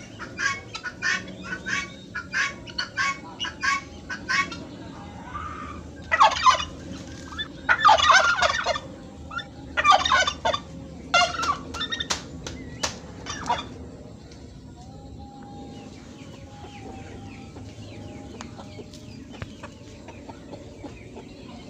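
Poultry calling: a run of short, evenly spaced clucks, then several louder, longer calls between about six and fourteen seconds in.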